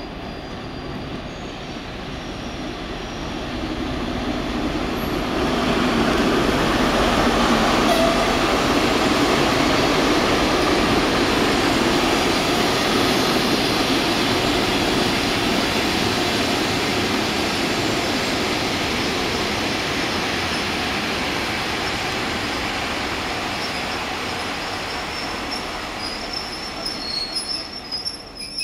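TEP70 diesel locomotive with its V16 engine hauling a passenger train past as it arrives at the station. The noise swells as the locomotive nears and passes, then the coaches' wheels roll by and the sound slowly fades as the train slows. Thin high wheel or brake squeals come near the end.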